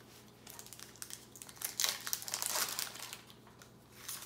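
Foil wrapper of a Yu-Gi-Oh! booster pack crinkling in the hands, a dense crackle about a second and a half long in the middle, with lighter rustles before and after.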